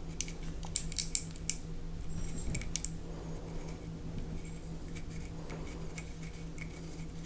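Small sharp clicks and taps of a screwdriver and grip screw working against a G-10 grip panel on a steel pistol frame: a cluster of about five clicks about a second in and a couple more near three seconds. A faint steady hum runs underneath.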